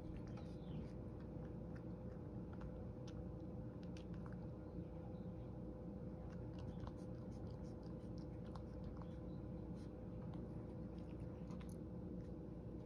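A cat licking and chewing the last of its food from a shallow dish, licking the dish clean: faint, irregular small wet clicks over a steady low hum.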